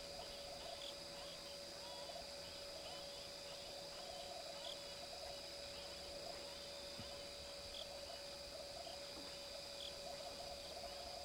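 Faint night insects chirping sparsely and irregularly, over a steady high-pitched whine.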